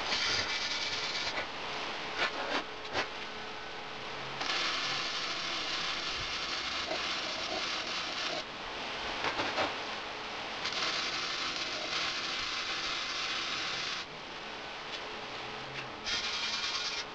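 Lincoln flux-core wire-feed welder laying short beads: the arc crackles and hisses in four bursts of a few seconds each. Each burst starts and stops abruptly, with brief pauses and a few clicks in between.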